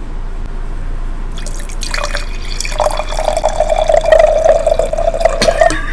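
Close-up liquid sound at a meal table: a trickle that turns into a steady, gurgling pour about three seconds in and stops just before the end.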